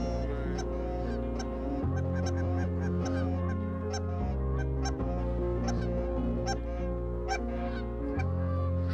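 Geese honking, many short calls from a flock, over background music with held chords.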